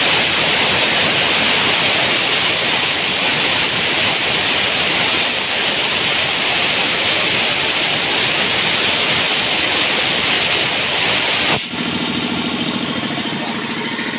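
Compressed air rushing out of the open brass ball valve on a 3 hp Montoya air compressor's tank, a loud steady hiss as the tank pressure falls, cut off suddenly about three-quarters of the way through. After the cut-off the compressor's pump and electric motor are heard running with an even, rapid beat.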